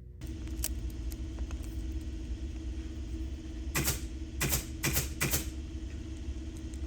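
A steady machine hum starts just after the beginning and runs on, with light clicks throughout and four short, harsh bursts of noise about four to five and a half seconds in.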